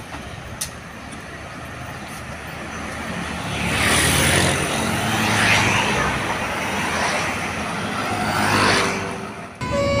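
Road traffic passing close by over a steady low engine hum. Vehicles swell and fade three times, about four, five and a half and eight and a half seconds in. The traffic noise cuts off just before the end.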